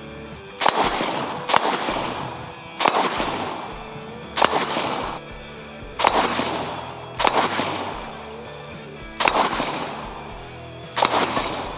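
AK rifle firing single shots at a steel target, about eight shots at uneven intervals of one to two seconds, each sharp crack followed by a short decaying tail.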